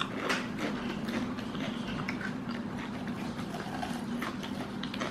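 Potato chips being crunched and chewed in the mouth, with a few sharp crunches at the start and then quieter chewing. A steady low hum runs underneath.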